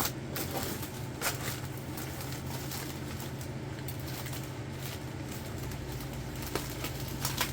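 Plastic packaging rustling and crinkling in a few sharp bursts as a mail package of Funko Pop figures is opened by hand, over a steady low hum.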